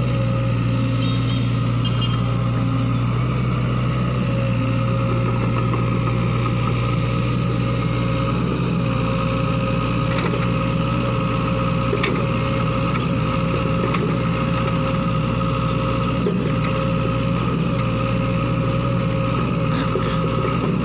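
Sany SY55C mini excavator's diesel engine running steadily as the machine digs, with a steady high tone over the engine. There are a few short clicks about ten and twelve seconds in.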